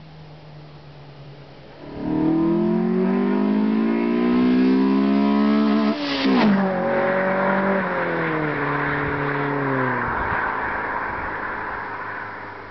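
Honda Civic with a B18C4 1.8-litre VTEC four-cylinder and a 2.36-inch OEM-look exhaust, accelerating hard toward the listener. The engine note turns suddenly loud about two seconds in and rises in pitch for about four seconds. Its pitch drops sharply as the car passes about six seconds in, and the exhaust note falls and fades as it drives away.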